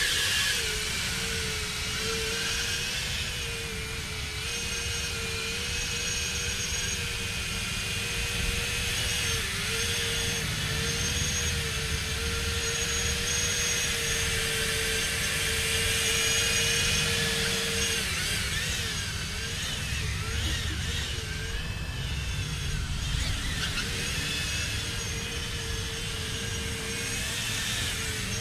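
FPV quadcopter's four 2306 brushless motors, run on 4S, spinning doubled-up eight-blade 3.5-inch ducted props (64 blades in all) in hover and low flight: a steady, turbine-like multi-tone whine that shifts in pitch with the throttle, most unsteadily after about 18 seconds.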